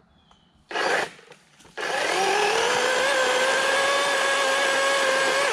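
Greenworks Commercial GS 180 18-inch cordless chainsaw: a short blip of the trigger just under a second in, then the saw runs for about four seconds, its motor whine rising in pitch as it spins up and then holding steady as it cuts into the base of the tree, before stopping.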